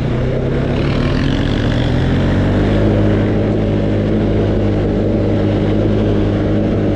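ATV engine running while riding, its pitch rising about a second in as it speeds up, then holding steady.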